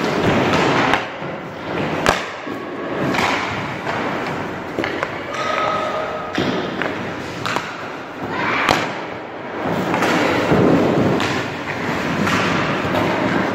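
Ice hockey skates scraping and carving on rink ice, with two sharp cracks, about six seconds apart, of stick striking puck on shots at the goalie.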